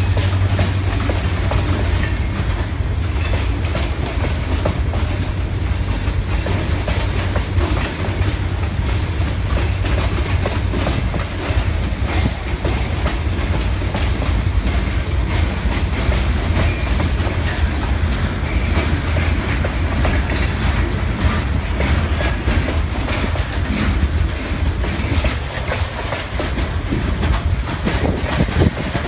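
Freight train of hopper cars rolling slowly past: a steady low rumble with a constant clickety-clack of wheels over the rails.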